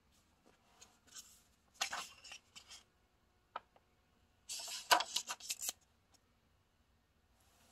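Paper pages of a hardcover picture book being handled and turned, rustling and crackling in two bursts: a shorter one about two seconds in and a louder one about halfway through as the page flips over.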